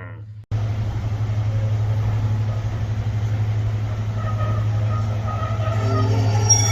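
Train running along the track: a steady rumble with a low hum, joined from about four seconds in by thin wheel squeal that builds toward the end.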